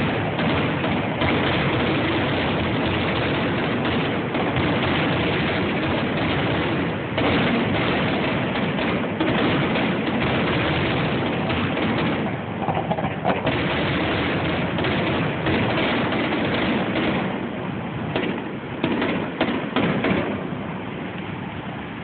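Fireworks display: a dense, continuous barrage of shell bursts and crackle that thins out near the end to a few separate bangs and then fades.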